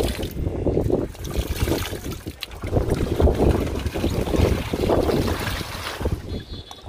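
Wind buffeting the microphone, a low uneven noise, with splashing and squelching from bare feet wading through shallow muddy water.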